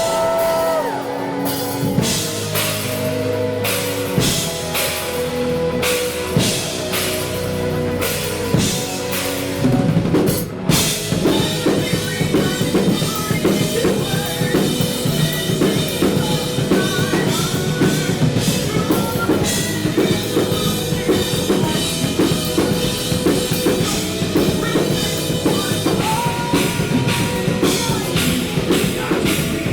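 Rock band playing an instrumental passage led by a drum kit. At first there are widely spaced hits under held notes; after about ten seconds the full band drops into a fast, dense drum beat.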